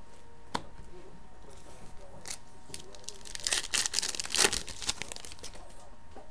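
A trading card pack's shiny wrapper is torn open and crinkled by hand, a burst of crackling about three seconds in that is loudest near its end. A single sharp click comes about half a second in.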